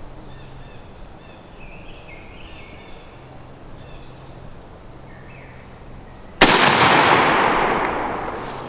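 A single 12-gauge shotgun blast from a Mossberg 935 firing a 3.5-inch Winchester high-velocity number 5 turkey load, about six and a half seconds in. It goes off with a sharp crack and a long echo that dies away over about two seconds.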